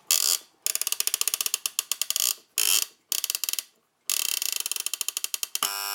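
Sankyo LT108 flip clock's number flaps clicking over in rapid runs with short pauses as the time is wound forward. Near the end its alarm buzzer starts with a steady buzz.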